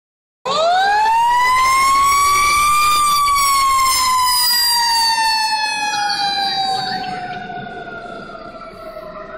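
Federal Q2B mechanical fire siren on a fire engine winding up, its pitch climbing quickly for about two and a half seconds, then coasting slowly down and fading as the truck goes by.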